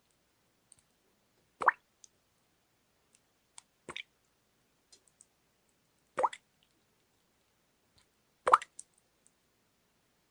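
Water dripping: four single drops land about two seconds apart, with a few much fainter ticks between them.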